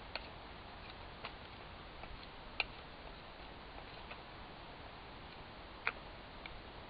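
Condor Bushlore knife whittling a wooden stick: a few sharp, irregular clicks as the blade bites and splits the wood, the loudest about two and a half seconds in and near the end.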